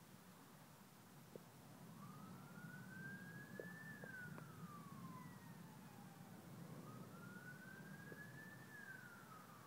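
Faint emergency-vehicle siren in wail mode: two slow rise-and-fall cycles, each climbing for about two seconds and then sliding back down, the first starting about two seconds in. Under it runs a faint steady hum with a few small clicks.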